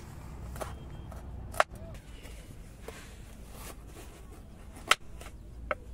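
Chef's knife knocking on a bamboo cutting board as a green chilli and then a bell pepper are cut: a handful of sharp single knocks, the loudest about a second and a half in and near five seconds in, over a low steady background rumble.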